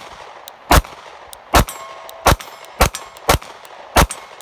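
Sig Sauer P365 9mm subcompact pistol firing six shots in steady succession, one about every half to three-quarters of a second. A faint metallic ringing follows the second shot.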